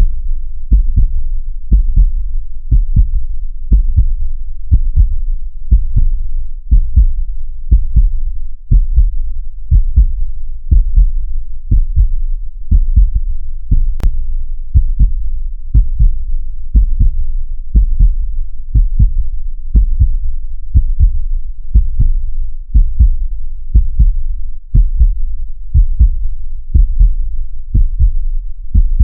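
Heartbeat: deep, steady double thumps (lub-dub) repeating evenly at about one beat a second.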